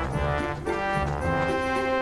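Background music: a short phrase of changing notes that settles into a held chord a little under a second in.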